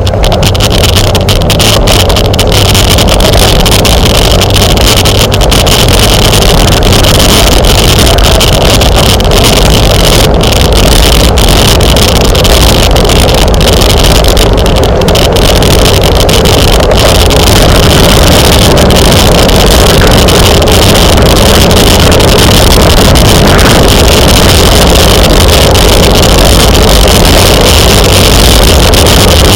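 Loud, steady wind rushing over the microphone of a camera carried on a moving bicycle at race speed, a continuous roar with no break.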